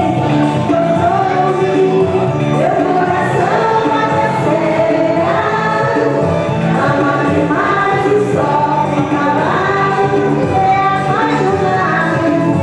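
A woman singing into a microphone over backing music, at a steady level.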